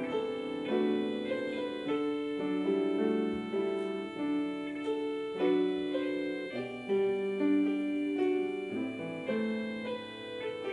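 Grand piano playing the worship prelude: a slow, steady melody over held chords, the notes changing about once a second.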